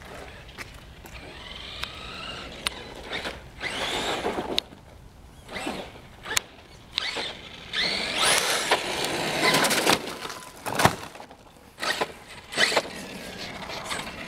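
Redcat Earthquake 8E electric RC monster truck being driven in bursts: its electric motor whines up and down in pitch as it accelerates, with noisy rushes from the tyres and drivetrain and a few sharp knocks. The longest, loudest burst comes about eight seconds in.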